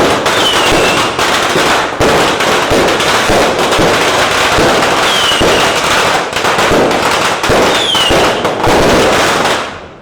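Fireworks going off at close range in a dense, continuous barrage of rapid bangs and crackles, very loud, with a few short falling whistles. The barrage dies away near the end.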